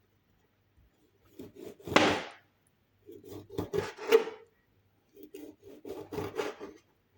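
Knife cutting a lemon on a cutting board: three bouts of quick, rough sawing strokes through the fruit.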